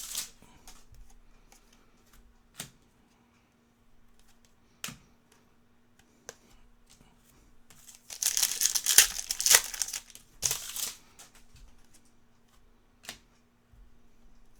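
Trading cards and their packaging handled on a table: a few single sharp clicks, and about eight seconds in a burst of crinkling and tearing lasting some three seconds, the loudest part. A faint steady hum runs underneath.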